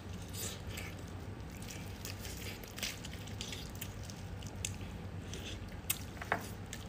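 Biting, chewing and tearing apart a braised pig's trotter: wet, squishy mouth and meat sounds with scattered short clicks, two sharper ones about six seconds in.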